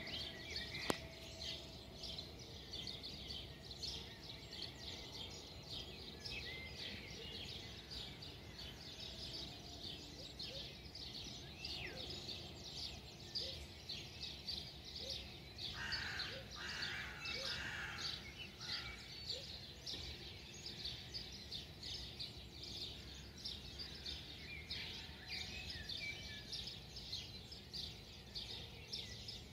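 Dawn chorus: many birds chirping continuously in short high notes, faint over a low steady rumble. A rougher, louder call stands out for a few seconds past the middle.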